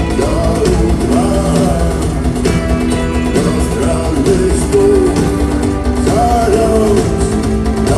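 Live rock band playing a song, with melodic lines that slide between notes over a steady bass and drum backing.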